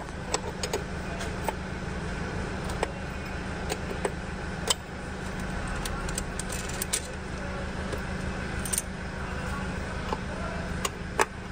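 Metal hand tools clinking and tapping on engine parts in scattered, irregular sharp clicks, over a steady low hum.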